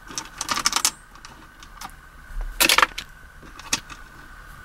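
Small metal screws clinking and rattling as they are handled and set down: a cluster of clinks in the first second, another short rattle a little past halfway, and a single click near the end.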